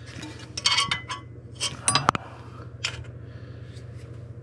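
Small metal parts, the Allen keys and clamp pieces of a bolt-on exhaust flange kit, clinking and clattering as they are handled, in three short bursts. A steady low hum runs underneath.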